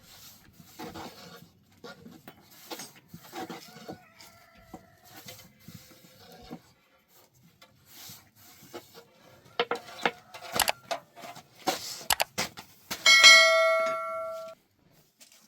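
Scattered knocks and clatter from something being handled, growing louder, then near the end a loud metallic ring that lasts about a second and a half and cuts off suddenly.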